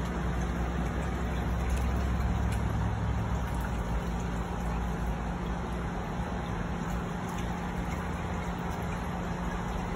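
Steady low hum over a rumbling background, the rumble easing about three seconds in.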